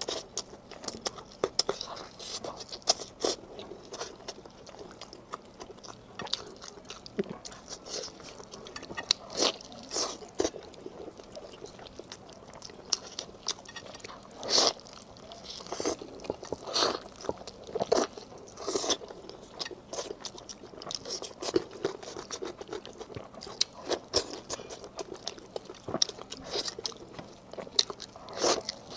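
Close-miked chewing and biting into beef ribs, with irregular crunches scattered throughout; the loudest bites come around the middle.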